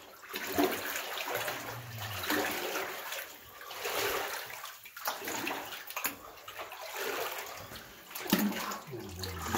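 Wellington boots wading through shallow floodwater, the water sloshing and splashing in swells that come roughly once a second with each stride.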